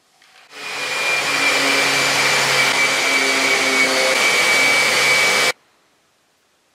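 Random orbital sander with a dust-extraction hose running on a wooden tabletop: a steady rushing hiss with a faint whine that comes up about half a second in and stops abruptly about five seconds later.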